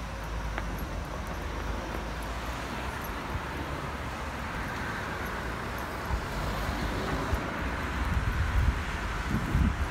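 Outdoor street ambience: steady traffic noise, with wind buffeting the microphone in gusts near the end.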